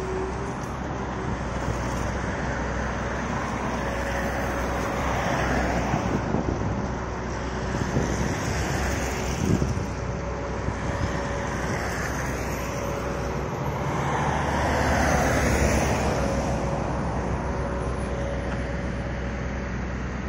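Steady city road traffic, with passing vehicles swelling louder a few times.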